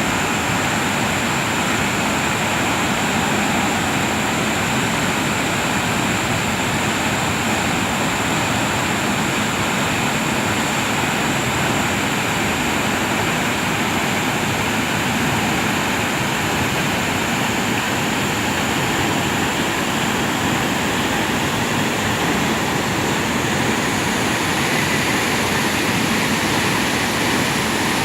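Waterfall's steady rush of falling water, a loud unbroken roar.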